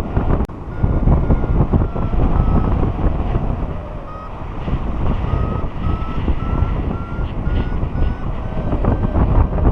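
A paragliding variometer beeps in a steady run of short tones, a couple a second, which signals that the glider is climbing. The pitch dips slightly and then rises toward the end as the climb strengthens. Rushing wind on the microphone is the loudest sound.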